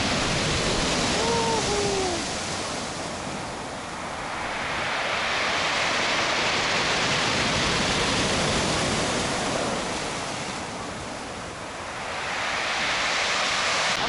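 Heavy surf of a stormy sea breaking on the shore, the wash swelling into two long surges and easing between them.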